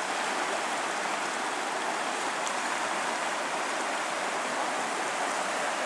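Fast, shallow river water rushing over stones through riffles in a steady, even hiss.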